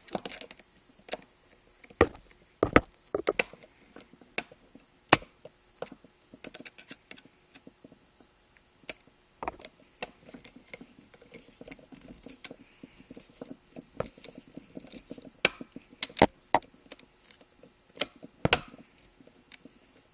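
Small metal clicks and taps of a screwdriver and the reel's parts as the bail screw is worked back into a spinning reel. They come irregularly, with faint handling noise between them.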